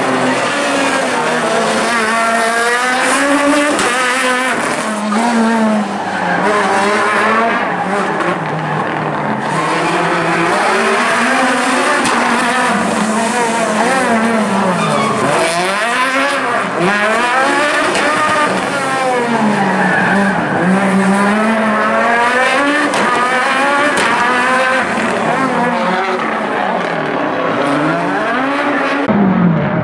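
Renault Clio Super1600 rally car's 1.6-litre naturally aspirated four-cylinder engine revving hard, climbing and dropping in pitch again and again as the driver accelerates, shifts and brakes through tight turns, with tyres squealing on the tarmac.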